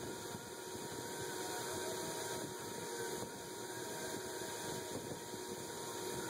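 KMG belt grinder running steadily, with the steel cleaver blade held against the moving abrasive belt and ground.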